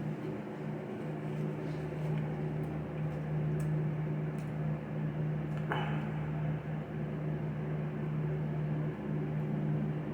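A steady low mechanical hum, with one brief rustle or crunch about six seconds in.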